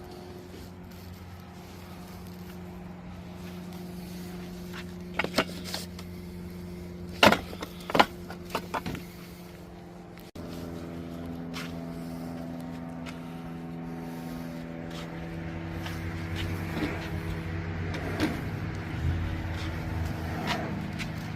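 A steady engine hum runs throughout. A few sharp knocks or clunks come in the middle. The sound jumps suddenly about halfway through, then the hum carries on.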